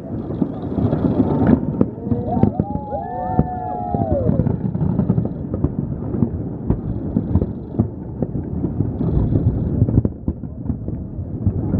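Aerial fireworks shells going off in quick succession: a constant run of bangs and crackles over a low rumble of booms, with a few rising-and-falling tones about two to four seconds in.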